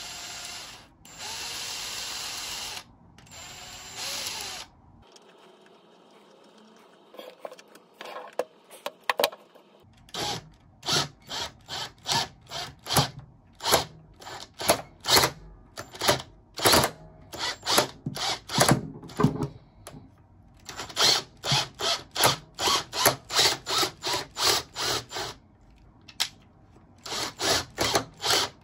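Ryobi cordless drill/driver turning a flexible shaft extension: three short runs of the motor, then, after a quiet spell, long series of short bursts, two or three a second, as it drives a screw into a tight corner.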